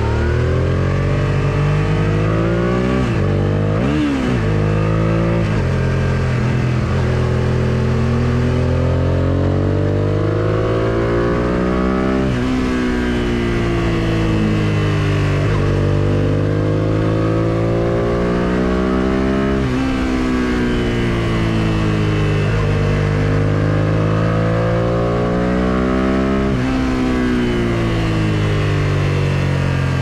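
1999 Suzuki SV650S V-twin with an Akrapovic full exhaust system, ridden hard: the engine note climbs through the revs and drops sharply, again and again, about every three to four seconds.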